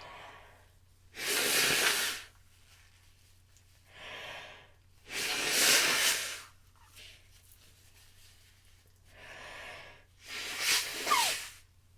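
A person breathing hard and noisily during a sneezing fit: three loud, breathy gusts, each after a softer breath, the last ending in a short falling voiced catch.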